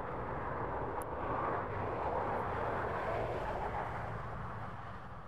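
Noise of a passing vehicle, a rushing sound that swells to its loudest about halfway through and fades toward the end.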